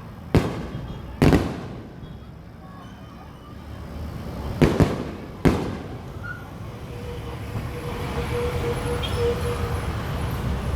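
Fireworks shells bursting overhead: five sharp bangs with short echoing tails. Two come close together in the first second and a half, then three more a little past the middle, two of them almost together.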